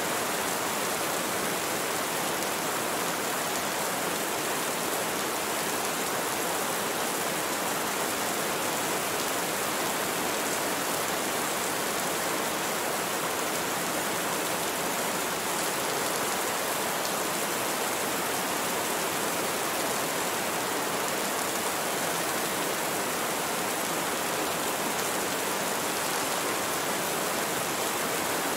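Steady rain falling, an even hiss that never lets up, with no thunder.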